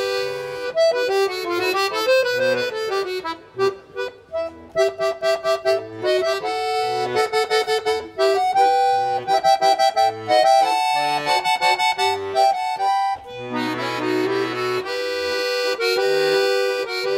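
Background music led by an accordion. It plays a lively melody in short repeated notes, with held chords at the start and again near the end.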